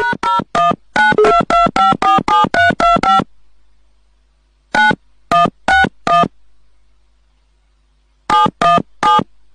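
Telephone keypad dialing tones: a fast run of a dozen or so short two-tone beeps, then a group of four about a second and a half later, and a few more near the end.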